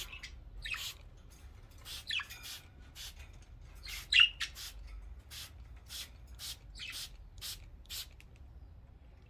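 Pet budgerigars chirping and squawking in short, scattered calls, some of them quick downward-gliding notes, with one louder squawk about four seconds in.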